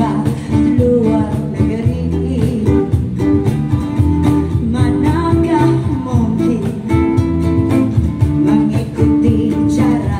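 A woman singing a dangdut song in a rock-style voice, backed by a strummed acoustic guitar and a bass guitar playing a strong, stepping bass line.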